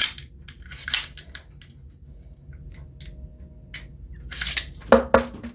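Metal slide of an Honor Guard pistol clicking and scraping against its polymer grip frame as it is worked onto the rails: scattered sharp clicks, then a louder cluster of clicks and rattles near the end. The slide is not going on because the takedown lever is not down.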